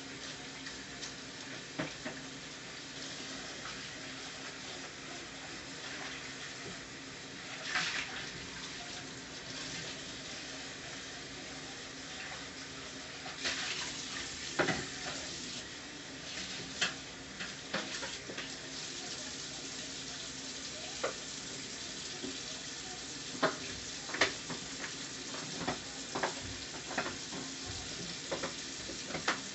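Taro stolons (kochur loti) frying in oil in a pan, a steady sizzling hiss with scattered sharp clicks, more of them in the second half.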